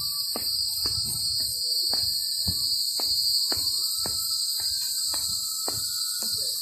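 A steady, high-pitched chorus of insects, loud and unbroken, with soft footsteps on a paved path about twice a second.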